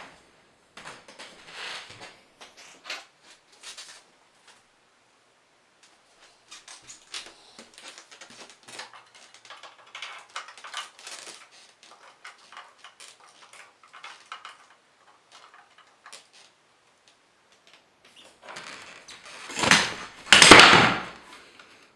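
Memory modules being handled and fitted into the IBM IntelliStation POWER 285's memory slots: scattered light clicks and rustles, then two louder rustling scrapes near the end.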